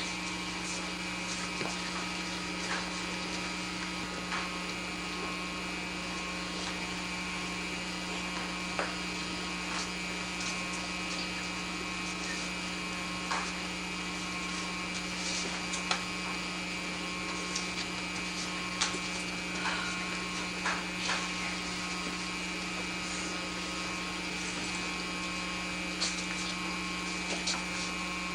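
Steady electrical hum with hiss, the kind of noise an old camcorder puts on videotape, with faint scattered clicks and small rustles.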